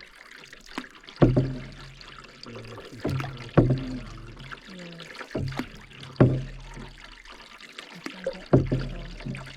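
Canoe paddle strokes in lake water: four strokes, about one every two and a half seconds, each a sharp pull that fades off, with water trickling from the blade between strokes.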